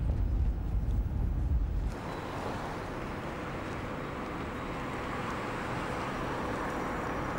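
Low rumble of a car's interior for about two seconds, then an abrupt change to steady street ambience with traffic noise.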